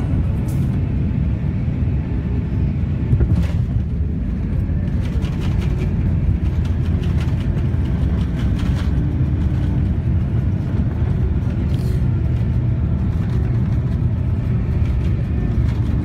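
Airliner cabin noise while taxiing: a steady low rumble of the engines and wheels, with a few light rattles.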